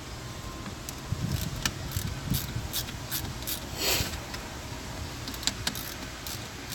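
Light, scattered clicks and scrapes of a T20 Torx screwdriver working small screws out of the back-up camera mount, over a steady low hum, with a short rustle about four seconds in.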